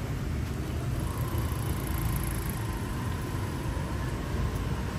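Steady rumble of street traffic, a car and a motorbike running along the road, with a faint steady whine coming in about a second in.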